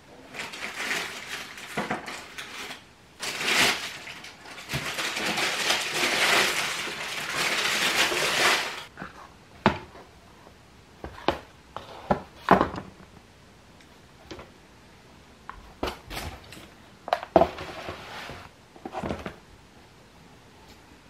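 Paper wrapping rustling and crinkling as a shoebox is unpacked, for about the first nine seconds, followed by scattered light knocks and taps as a pair of leather sneakers is handled and set down.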